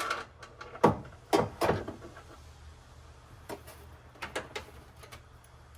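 A series of separate knocks and clunks of objects being handled, the loudest three close together in the first two seconds and a few lighter ones later.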